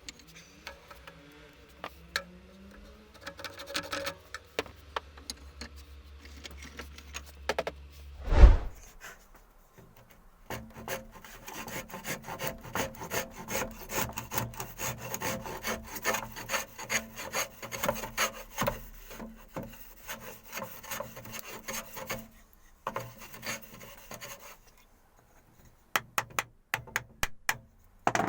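Rapid, rhythmic rasping and scraping strokes on wood, starting about ten seconds in after a single loud thump and running for some twelve seconds. Scattered clicks and knocks come before and after.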